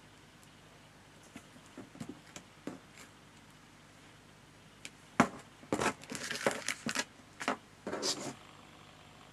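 Paper and card craft pieces being handled on a worktable. A few light taps come first, then a sharp tap about five seconds in, followed by a few seconds of crinkly rustling.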